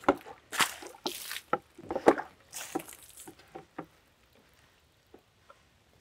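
Water poured from a plastic jug splashing onto the flat sawn face of a silver maple log, in irregular splashes that stop about four seconds in.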